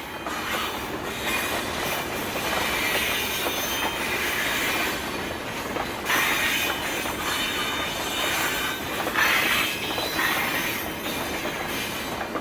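Freight train rolling past, its wheels squealing on the rails in repeated high screeches over a steady rumble and clatter.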